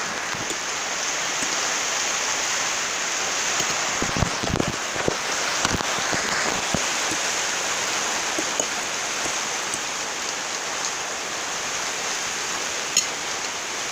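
Heavy rain falling steadily, with a few low thumps about four to seven seconds in and one sharp tap near the end.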